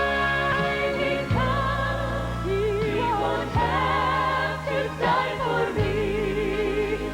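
Gospel song with sustained chords under a wavering, held melody line. The bass and chords change about every two seconds.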